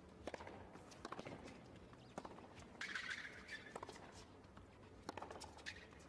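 Tennis rally on a hard court: a serve followed by irregular sharp pops of rackets striking the ball and the ball bouncing, back and forth, with a brief squeak about three seconds in, likely a shoe on the court surface.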